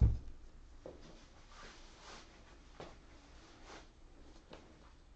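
A single low thump right at the start, then faint, scattered rustles and light clicks of unseen handling.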